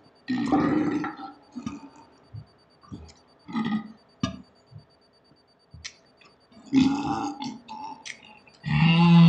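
Men belching after drinking beer: several separate burps with short clicks between them, ending in the loudest, a long, deep belch with a steady low pitch near the end.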